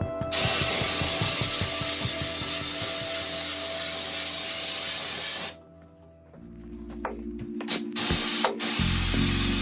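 Air-driven spray gun applying Raptor bed liner. It gives a long steady hiss that stops about five and a half seconds in, then a couple of short spurts and a steady hiss again near the end.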